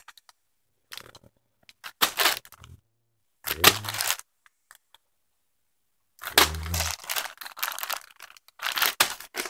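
Sealed plastic bags of small plastic game pieces crinkling as they are handled and turned over. The sound comes in several short bursts with pauses between them, and the longest run starts about six seconds in.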